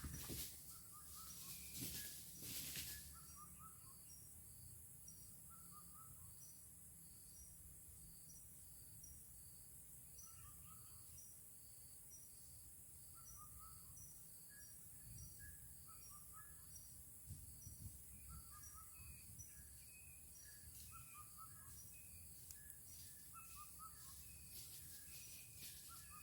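Faint outdoor ambience of bird and insect calls: a high, short chirp repeated about twice a second, other short bird calls every few seconds, and a steady high insect hiss.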